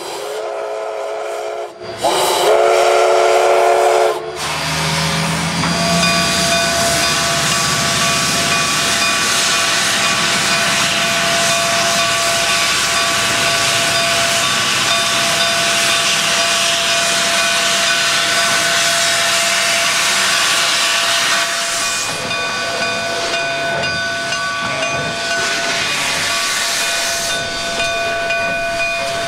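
The whistle of D&RGW K-36 2-8-2 steam locomotive #487 sounds two blasts, the second louder. Then comes a loud, steady hiss of steam from its open cylinder cocks as the locomotive starts its train.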